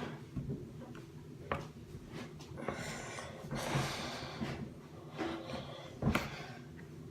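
A person breathing hard and puffing with effort while pulling on a tight football cleat, with fabric and shoe rustling and two sharp knocks, about one and a half seconds in and again near the end.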